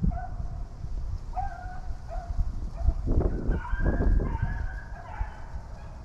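A pack of rabbit hounds baying and yelping while running a rabbit's track, many short, rising and falling cries overlapping through the woods.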